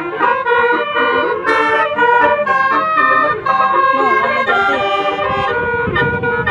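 Telolet musical horn, several horn trumpets sounding in turn to play a quick repeating tune, the pitch jumping several times a second. A low rumble comes in near the end.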